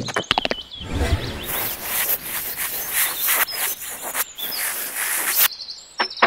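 Sound effects for an animated title: a few sharp clicks, then from about a second in a noisy rushing hiss with pulses and faint high chirps, which cuts off suddenly about five and a half seconds in, followed by a single click.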